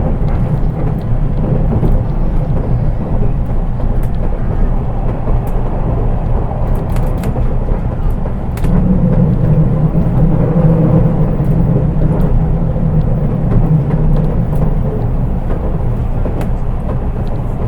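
Running noise inside a JR East 183 series DC electric train, heard from the unpowered KuHa driving car: a steady low rumble with scattered light clicks. About nine seconds in, a louder, deeper drone sets in and eases off again about five seconds later.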